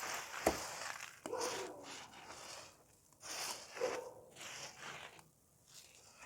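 Dry, crunchy cake being crumbled by hand: a sharp crack about half a second in, then separate short crunches every second or so.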